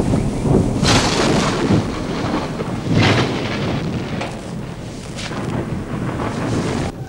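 Thunderstorm: thunder rumbling over steady rain, with two loud claps, one about a second in and another about three seconds in.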